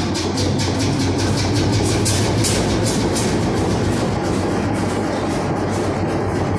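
Big old Fairbanks Morse stationary engine running just after a cold start, its exhaust beating out about five even pulses a second over a steady low hum.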